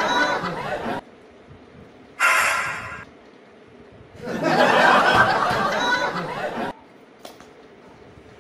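Laughter in three bursts, each cut off abruptly. The longest runs from about four to nearly seven seconds in.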